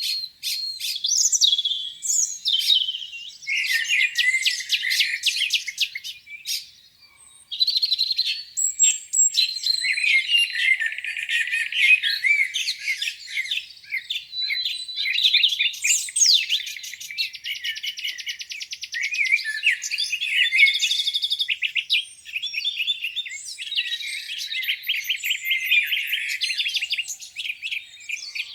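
Several songbirds singing at once in a dawn chorus of overlapping chirps, whistles and rapid trills, with a brief lull about seven seconds in.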